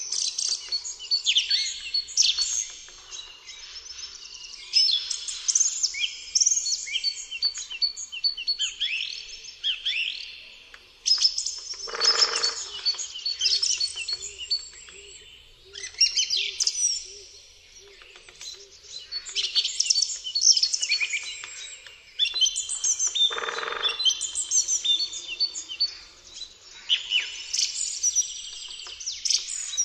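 Forest birdsong: several small songbirds chirping and singing in overlapping, high-pitched phrases and trills. Two short, lower rushing noises come about twelve seconds in and again about eleven seconds later.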